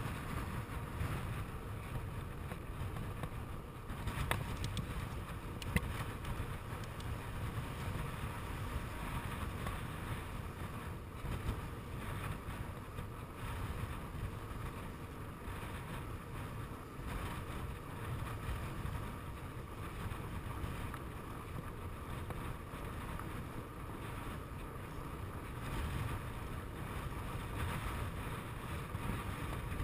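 Steady wind noise on an action camera's microphone while riding a bicycle along an asphalt road, with a couple of sharp clicks a few seconds in.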